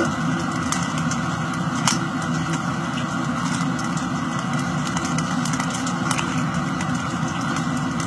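Steady background hum with a few faint, separate clicks as a Rubik's cube's layers are turned.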